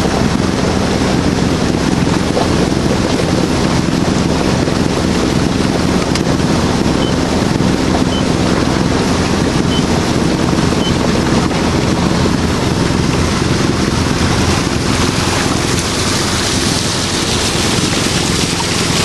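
A boat under way on its motor: a steady low engine hum with water sounds and wind buffeting the microphone. Near the end the hiss turns brighter.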